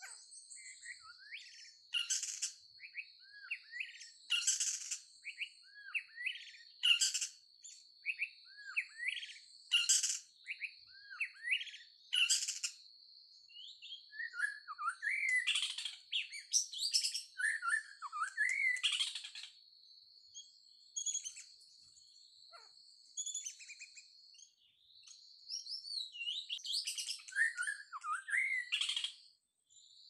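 Songbird calling in quick, varied whistled notes mixed with harsh calls that repeat every two to three seconds, over a steady high thin whine that breaks off for a few seconds near the end.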